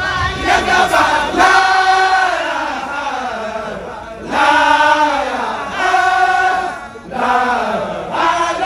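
A large group of Baye Fall men chanting together in unison, in long sung phrases that rise and fall, with short breaks between them.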